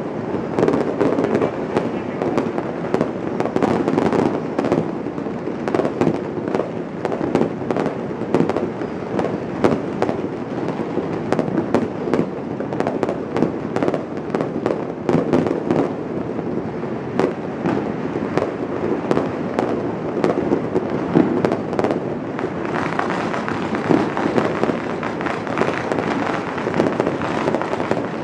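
A dense, continuous barrage of fireworks going off, many sharp bangs overlapping with no pause, with more crackle in the last few seconds.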